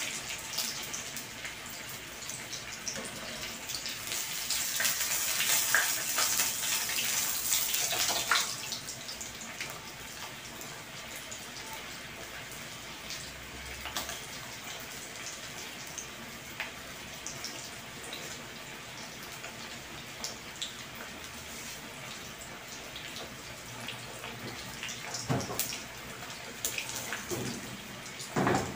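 Flour-coated talakitok (trevally) pieces sizzling as they deep-fry in hot oil in a wok, loudest in about the first eight seconds and then a steadier, quieter sizzle. A few light clicks near the end.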